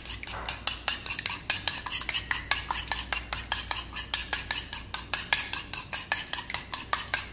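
Metal spoon beating egg in a white ceramic bowl, clinking against the bowl in a quick, steady rhythm of several strokes a second.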